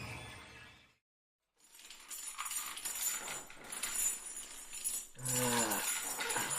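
Eerie music fading out, a moment of silence, then metallic jangling and clinking. A short low voice sound comes about five seconds in.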